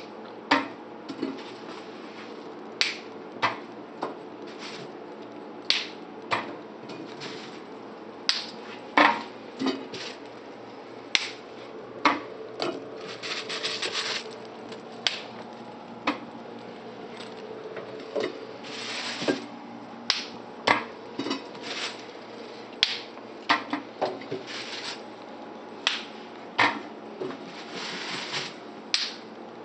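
Fresh asparagus spears being snapped by hand, crisp sharp cracks coming irregularly, roughly one a second, with a longer rustle near the middle.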